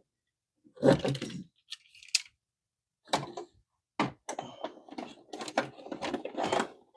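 Hard plastic toy parts clicking and knocking as a small figure is fitted into the 1994 Bandai Red Dragon Thunderzord: a knock about a second in, then a quick run of clicks and rattles through the second half.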